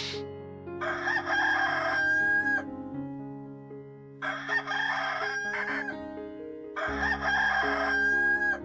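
Rooster crowing three times, each crow about two seconds long and ending on a held note, over steady background music.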